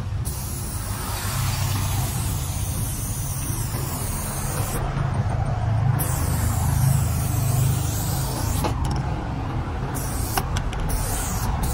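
Aerosol spray paint can hissing in two long sprays, the first about four and a half seconds and the second about two and a half, then a few short spurts near the end, over a steady low rumble.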